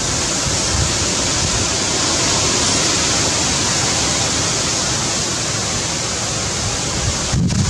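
Wind rushing over the microphone outdoors: a loud, steady hiss, with low gusty rumbles coming in near the end.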